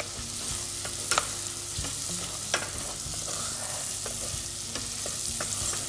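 Diced bacon and onion sizzling in a stainless steel pan as a wooden spatula stirs and scrapes through them, with a few sharp knocks of the spatula against the pan.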